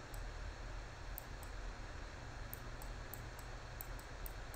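Faint steady hiss with soft, irregular computer-mouse clicks, about a dozen scattered through, as strokes are drawn on screen.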